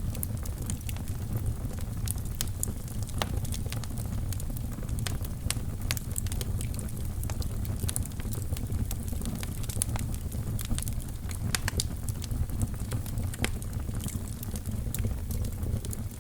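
Wood fire burning in a fireplace: many small sharp crackles and pops, a few each second, over a steady low rumble of the flames.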